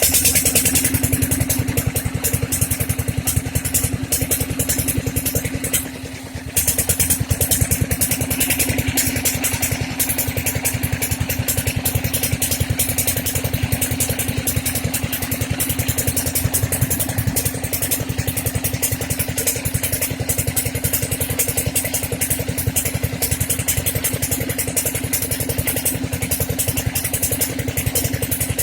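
Dompeng-type single-cylinder diesel engine running steadily with a fast, even chugging, briefly fading about six seconds in.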